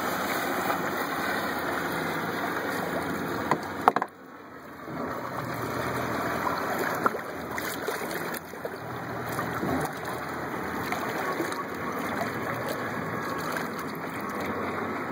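Water sloshing and splashing at the side of a boat, around a striped bass and the hands holding it in the lake. There are a couple of sharp knocks about four seconds in, then a moment of quieter water.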